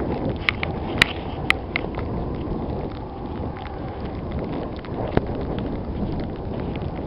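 Strong gusty wind rumbling and buffeting against the microphone, with a few sharp clicks scattered through it, most of them in the first two seconds.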